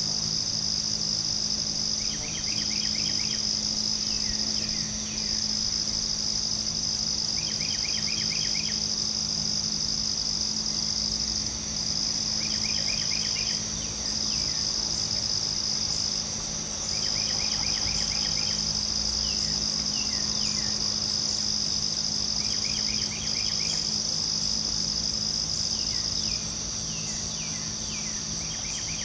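Night insect chorus: crickets give a steady, high, continuous trill. A shorter, lower, pulsed call repeats about every two to three seconds.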